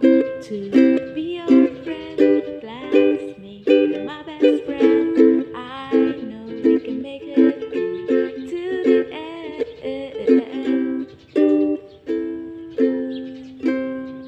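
Ukulele strummed in a steady rhythm of chords, ending on a chord that rings out and fades near the end.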